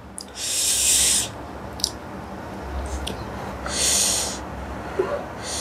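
A person drawing three sharp, hissing breaths, each up to about a second long, as a reaction to the chili heat of spicy noodles. There are a few light clicks in between.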